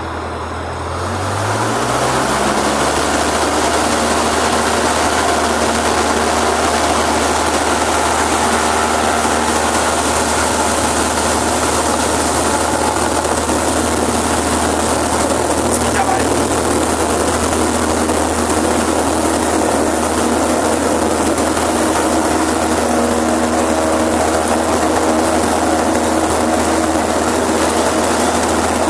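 Cessna 152's four-cylinder Lycoming engine and propeller coming up to full power, its pitch rising over the first two seconds, then running with a steady loud drone through the takeoff run.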